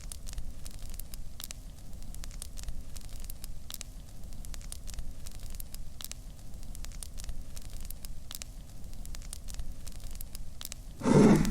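Steady low rumble with scattered small crackles and clicks, and a short louder burst of noise near the end.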